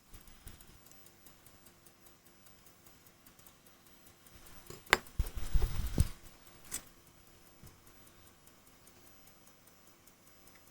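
Tissot Cal. 43 pocket watch movement ticking faintly and quickly. About five seconds in comes a sharp click, then a second of handling knocks and rubbing, and another click shortly after.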